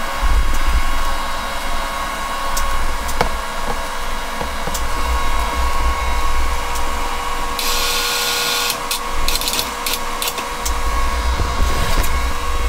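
Electric drive motors of a power wheelchair whining steadily over a low rumble as the chair moves. The rumble drops away for a few seconds past the middle, and a short burst of hiss comes about two-thirds of the way through.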